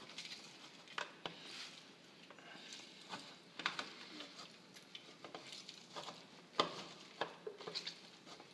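Orange half twisted and pressed by hand on a plastic citrus reamer: wet squishing of the pulp with irregular small clicks and ticks, the loudest about two-thirds of the way through.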